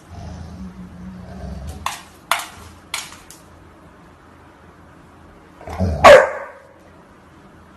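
A dog barks once, loudly, about six seconds in. Before the bark there is a low rumble and three sharp clicks or taps.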